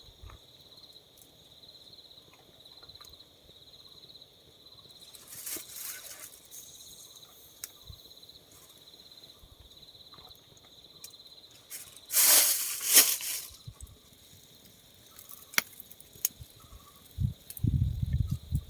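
Night insects trilling steadily in a high, faintly pulsing drone, broken by brief rustling bursts, the loudest about twelve seconds in, a few clicks, and low thumps near the end.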